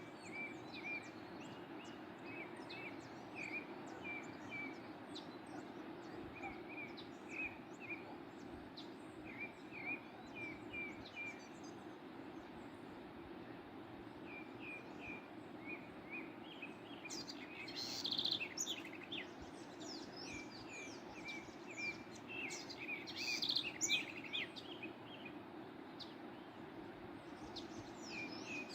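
Small birds chirping in short repeated phrases over the steady rush of a waterfall, with louder, busier calling past the middle.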